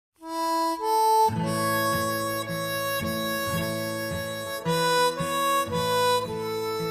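Harmonica music starting about a quarter second in: a melody of held notes over chords pulsing in a steady rhythm.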